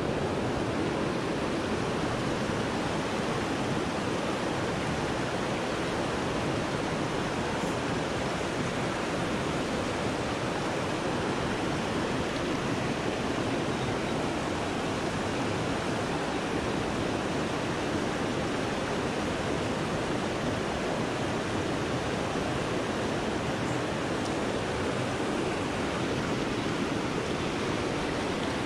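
Steady rush of a flowing river's current.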